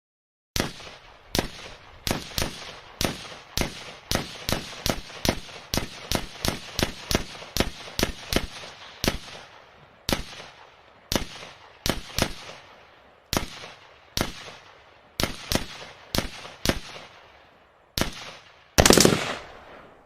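A string of pistol shots, billed as a Glock 19, each a sharp crack with a short echoing tail. The shots come quickly, two or three a second, for the first several seconds, then slow to about one a second. Near the end comes one longer, louder blast.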